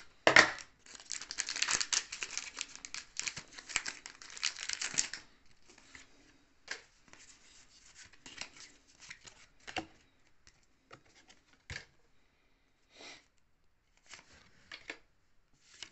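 Foil booster-pack wrapper crinkling loudly as it is opened, with a sharp rip about half a second in, for about five seconds. Then come faint scattered flicks and rustles of trading cards being handled.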